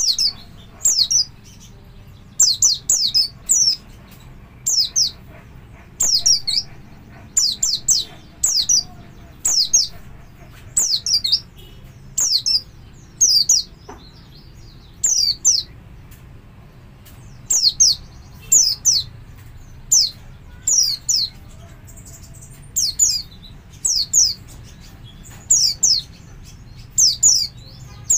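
Caged white-eye (pleci) giving its double call: clusters of two to four high, sharply falling notes, repeated every second or two with a few short pauses. This is the call keepers play as a lure to set other white-eyes calling.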